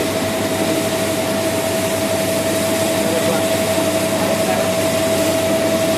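MHR-1500 rice milling machine running steadily with a constant whine over its noise as it whitens hulled brown rice.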